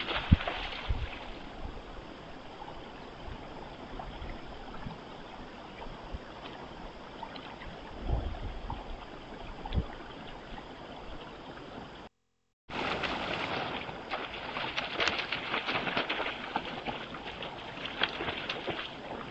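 White-tailed deer splashing through shallow pond water. There is a sharp splash right near the start, then quieter wading with a few soft thumps. After a brief dropout, a longer run of rapid splashing follows as a deer bounds through the water.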